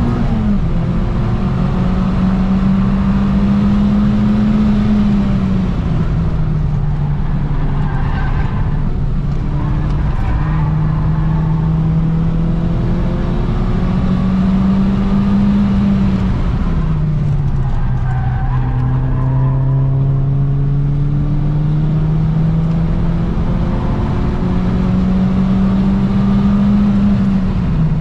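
Car engine driven hard around a race track, its pitch climbing slowly under acceleration and dropping several times as the driver lifts or changes gear.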